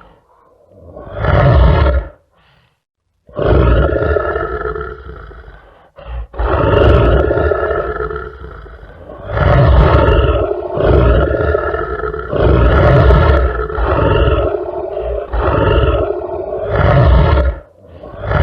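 Lion roaring, a run of loud calls one after another, each lasting one to three seconds, with short breaks between some of them.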